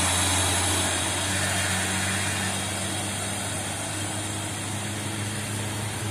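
Loaded cargo truck's diesel engine pulling uphill and away, its steady low sound fading slowly over the first few seconds, with small motorcycle engines passing.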